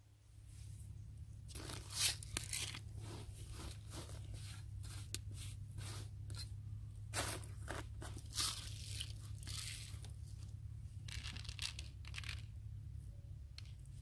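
Irregular scratchy crunching and rustling from hands at work on dry ground and materials, short crunches coming in clusters, over a steady low hum.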